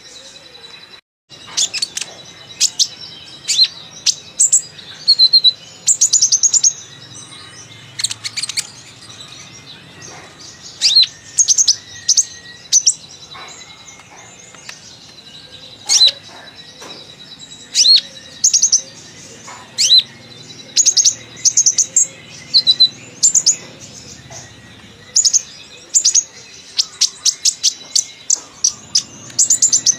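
Sunbird ('kolibri ninja') singing a chatty run of very short, sharp, high chirps and trills in quick clusters, with short pauses between. A faint steady high whine runs underneath.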